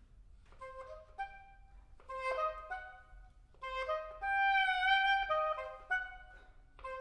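Oboe playing a melody in short phrases, with a longer held note around the middle.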